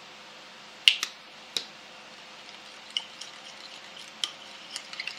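A spoon clinking against a small bowl while a dressing is stirred: a handful of sharp, ringing taps, the first about a second in, then smaller, quicker clicks near the end.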